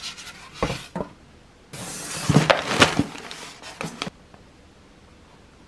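Handling of a Styrofoam delivery box and a plastic bag of meal-kit ingredients: a few light knocks, then about two seconds of plastic rustling and crinkling, which stops abruptly.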